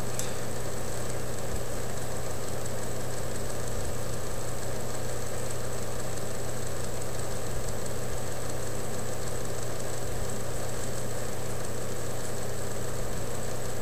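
A steady low hum over an even hiss, unchanging in level throughout, with no knocks or clicks.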